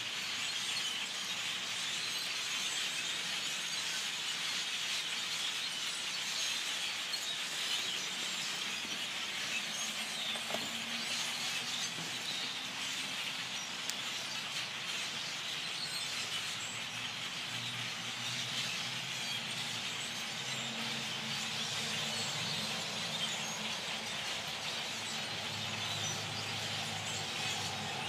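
A large flock of birds calling all at once in the treetops: a noisy, steady mass of overlapping high calls.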